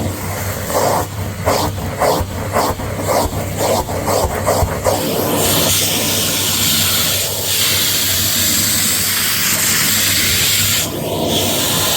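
Hetty Hoover canister vacuum sucking up a crunchy, powdery dirt mix. For the first five seconds the tool scrapes across it in repeated strokes, about three a second. Then the sound settles into a steady, rushing hiss of suction, with a brief dip near the end.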